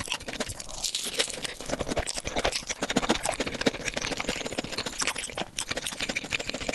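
Close-miked eating sounds: food being torn, handled and chewed, a dense run of small clicks and crackles.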